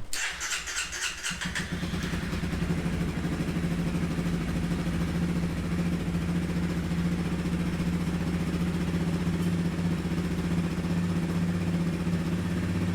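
Honda CRF300 Rally's single-cylinder engine starting up with a brief rattle in the first second and a half, then idling steadily. The engine has just been rebuilt and reassembled, and it is running well.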